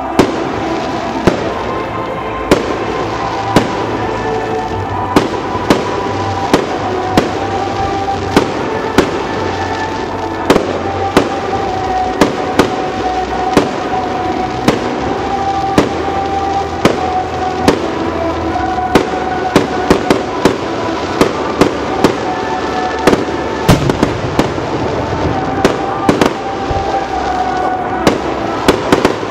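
Fireworks display: aerial shells bursting in a steady run of sharp bangs, roughly one to two a second, over music with long held notes.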